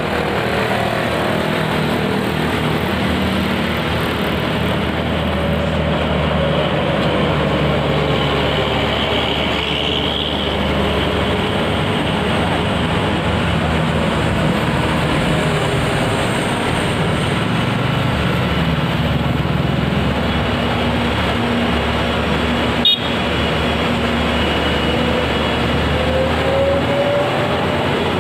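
Road traffic: heavily loaded diesel trucks, a UD Quester among them, and buses driving past with motorcycles, their engines running steadily. One engine note rises near the end, and there is a single sharp click late on.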